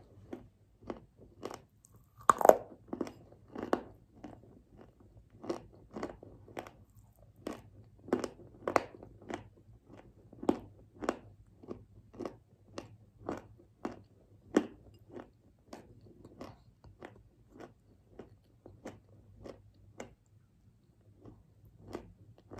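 Chewing of a mouthful of clay paste, white Turkestan clay with Ural clay mixed in: short sharp chews about twice a second, the loudest bite about two seconds in, the chews quieter in the second half.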